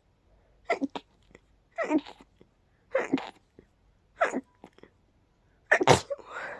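A person sneezing five times in a row, each sneeze a short falling cry ending in a sharp burst. The last one, near the end, is the loudest and is followed by a breath. The sneezing is brought on by a pollen allergy.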